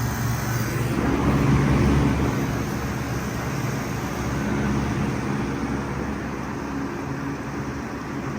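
2019 Bard 5-ton wall-hung heat pump running in cooling mode: a steady low hum from the compressor under the even rush of its fan.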